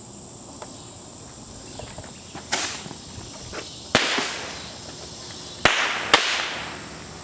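Four sharp explosive bangs, the last two about half a second apart, each trailing off in an echo that dies away over about a second.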